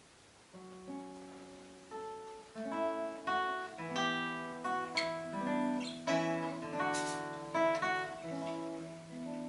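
Solo classical guitar played fingerstyle: after a brief pause, a phrase starts about half a second in with single plucked notes that build into fuller chords, with a rolled chord near seven seconds.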